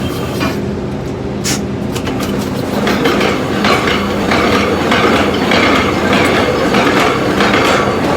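Casing tongs gripping and spinning a joint of 10 3/4-inch casing, a fast mechanical ratcheting rattle from about three seconds in, over the steady drone of rig machinery. A single sharp clank comes about a second and a half in.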